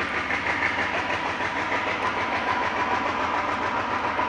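Vintage CP Rail Alco diesel-electric locomotive's engine running steadily, a dense rumble with a thin steady whine over it.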